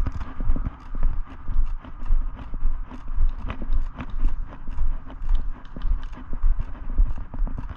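Footsteps of a person walking at a steady pace, just under two steps a second, with dull thuds and crunching on the ground.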